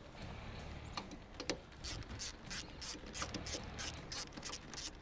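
Hand socket ratchet clicking in quick back-and-forth strokes as it backs out a bolt, a few clicks about a second in and then a steady run of about three a second from about two seconds in.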